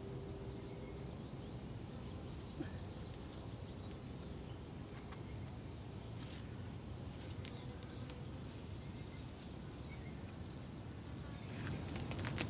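Steady low outdoor rumble with a few faint scattered ticks. Near the end a crackling patter of many quick clicks sets in and grows louder: loose crumbly rock (choss) breaking off the crack and raining down.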